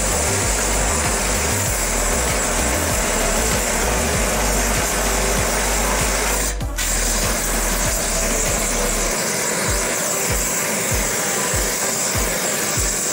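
Gas torch flame hissing steadily as it heats the top tank of a radiator, broken by a short drop about halfway through. A low, beat-like pulse from background music runs underneath.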